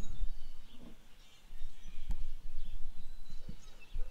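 Wind rumbling on the microphone with a few low knocks, and small birds chirping now and then in the background.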